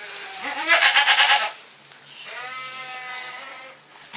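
Goat bleating twice: a loud, quavering bleat about half a second in, then a longer, quieter bleat.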